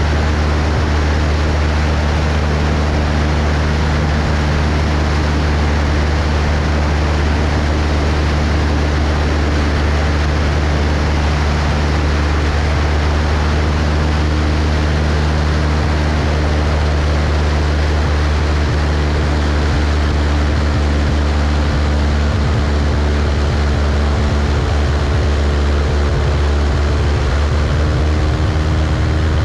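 Cessna 172's piston engine and propeller running steadily in flight, a constant drone under a rush of air noise.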